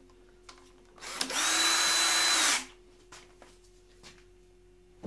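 Cordless drill (not an impact gun) with its torque clutch backed off, spinning a nut down an ARP main-cap stud on a small-block Chevy 400 with a socket. It whirs steadily for about a second and a half, starting about a second in, then stops abruptly and a few light clicks follow.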